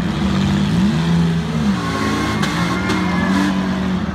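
Engines of several demolition derby cars running and revving, their pitch rising and falling unevenly. Two brief sharp noises come about two and a half seconds in.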